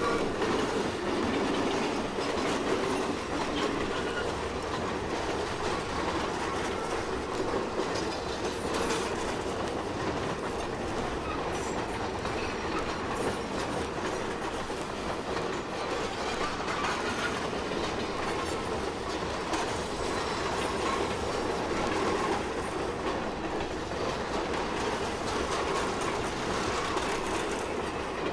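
Steam train of the Bonhomie and Hattiesburg Southern Railway rolling steadily past, its cars clicking over the rail joints. Played back from a vinyl record.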